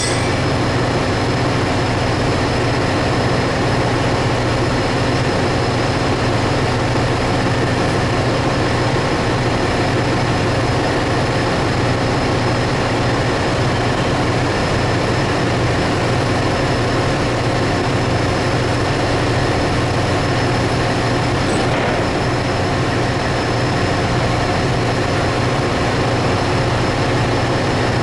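Ship's engine-room machinery running steadily: a loud, even drone with a deep hum and a few steady whining tones over it.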